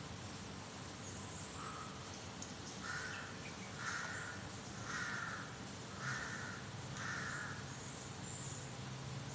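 Black crow cawing: one quieter caw about a second and a half in, then a run of five caws about a second apart.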